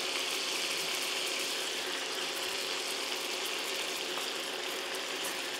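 Pigeon breast fillets frying in hot butter and rapeseed oil in a pan, a steady sizzling hiss.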